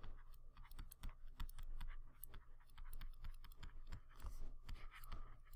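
Stylus tip tapping and scraping on a touchscreen as a word is handwritten: faint, quick, irregular clicks.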